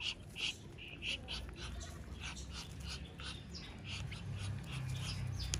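Young shamo aseel chickens cheeping while they feed: short high calls repeated a few times a second, over a low hum that grows louder in the second half.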